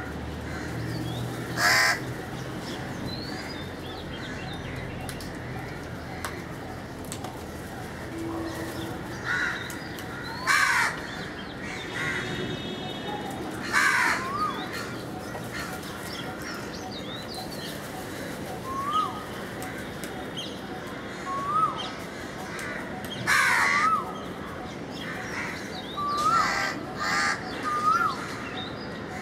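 Crows cawing: several harsh single caws a few seconds apart, with short rising chirps of a small bird in the second half.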